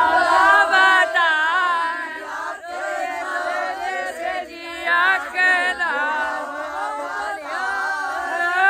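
A group of people shouting and chanting together, many voices overlapping without a break.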